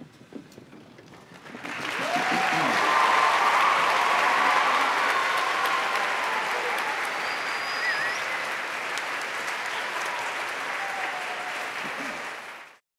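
Audience applauding, starting about two seconds in, with some cheering over the clapping. It cuts off abruptly just before the end.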